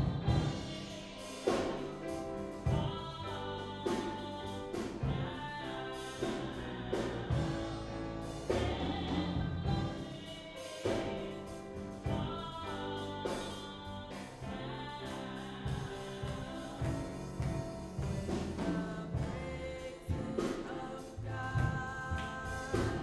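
Small choir singing with grand piano and drum kit accompaniment, with regular drum and cymbal strokes.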